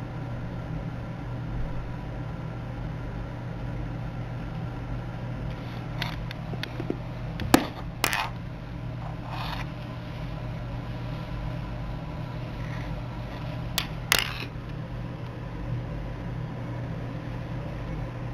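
A steady low electrical hum with a few short, sharp clicks, the loudest a pair about halfway through and another pair about three quarters of the way in.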